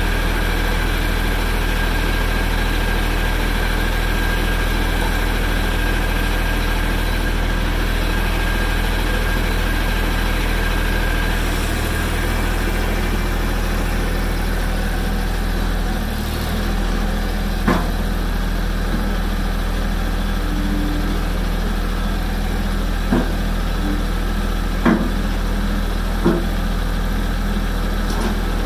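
Mahindra Max 26XL compact tractor's diesel engine idling steadily, with a few sharp metal knocks in the second half.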